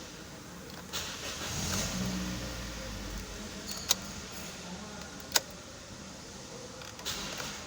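Toyota Corolla starter motor spinning for about two seconds with an abnormal noise but not cranking the engine, the starting fault being shown. Two sharp clicks follow.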